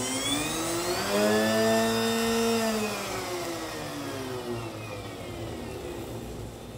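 Homemade 3D-printed axial-flux brushless DC motor with air-core coils, run through a sensorless speed controller, whining as it spins. Its pitch climbs over the first second or so, holds briefly, then glides down as the motor slows, fading near the end.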